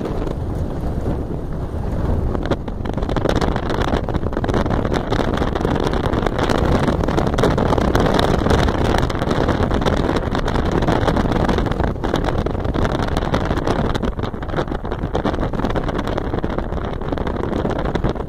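A motor vehicle's engine running steadily under load, with wind buffeting the microphone, heard from inside the moving vehicle.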